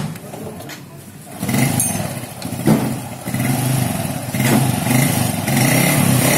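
Honda Revo's single-cylinder four-stroke motorcycle engine starting about a second and a half in and running, rising and falling, then settling into a steady run near the end: a test run after its valve clearances have been adjusted to cure a ticking noise.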